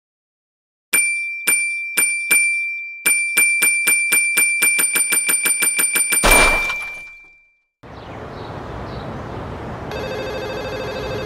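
Front-desk service bell struck four times, then rung rapidly about six times a second for some three seconds. A sudden crash cuts it off about six seconds in. From about eight seconds a steady noisy rush follows, with a buzzy tone joining near the end.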